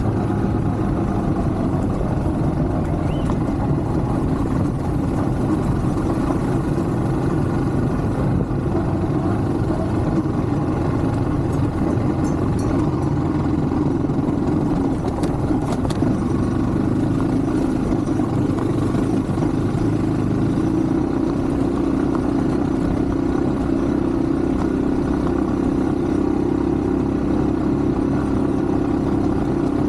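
Yamaha WR155 enduro motorcycle's single-cylinder engine running steadily while riding, its engine speed holding fairly even throughout.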